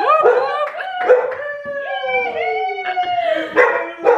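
People whooping and shrieking in excited celebration, overlapping high cries with a long one sliding down in pitch.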